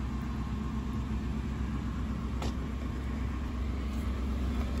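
Pickup truck engine idling steadily, a low rumble.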